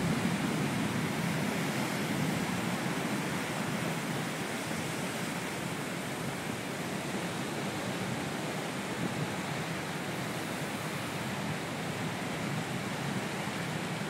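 Heavy storm surf breaking on rocks and washing over the rocky shore: a continuous rush of water, a little louder at the start and swelling again near the end.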